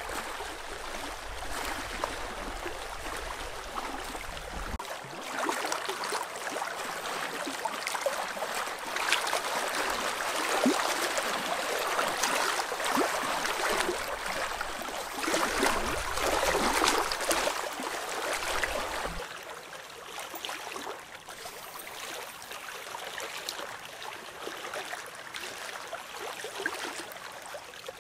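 Small waves lapping and splashing against shoreline rocks, busier and louder through the middle stretch, with wind rumbling on the microphone at times.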